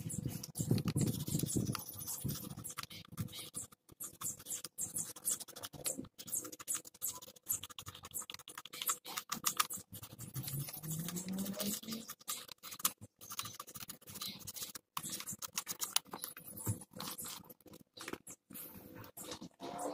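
Sandpaper scratching in quick, repeated short strokes over the bulb-socket contacts of a Suzuki Mehran instrument-cluster circuit board.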